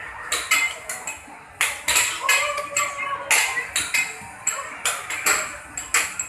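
Arcade basketball machine starting a game: a run of sharp knocks and clatters, about a dozen, as its basketballs are let down into the ball tray.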